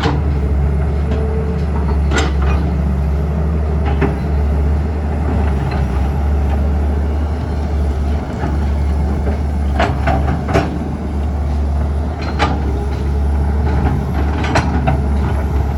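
Heavy demolition machinery engine running steadily with a deep rumble, with scattered sharp knocks and clanks at irregular intervals.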